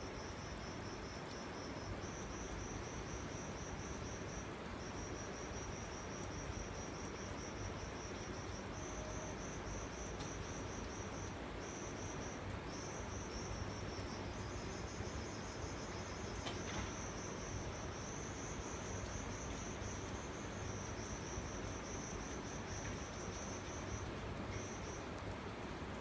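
Insects trilling in high, finely pulsed phrases a few seconds long that stop and start again throughout, some phrases pitched a little higher than others, over a steady hiss.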